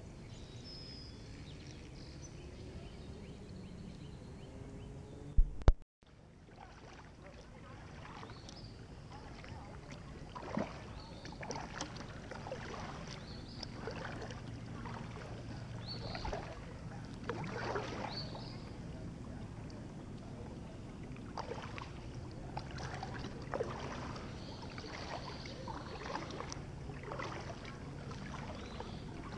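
Kayak paddling: a double-bladed paddle dipping and splashing into the river, with water running off the blades, roughly a stroke a second. Before the paddling, two sharp knocks about five seconds in, then a brief dropout.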